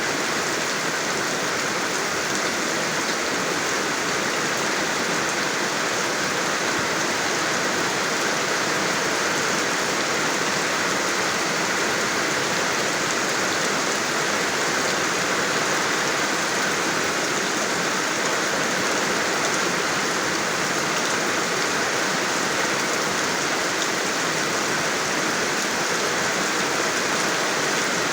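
Steady rain falling and pattering on surfaces, an even, unbroken hiss.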